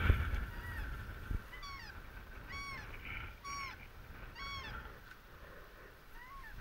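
Geese honking: four high, arched calls about a second apart, with more beginning near the end, and a single dull knock early on.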